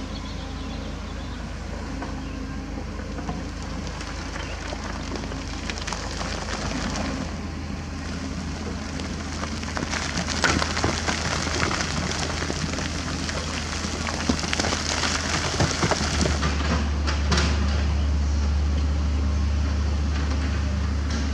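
Kobelco SK75 mini excavator's diesel engine running while its bucket digs into limestone, with crunching, clattering rock and sharp knocks of stone. About two-thirds of the way through, the engine gets louder and deeper as it works harder.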